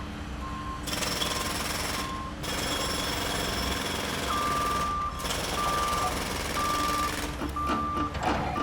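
A reversing alarm beeps on one steady pitch over a dense, rattling machine noise. The beeps are short and faint at first, then from about halfway through they become longer and louder, about once a second.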